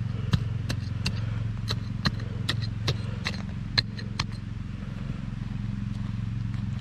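A small hatchet chopping into loose soil, about ten quick strikes two or three a second, stopping about four seconds in. A steady low hum runs underneath.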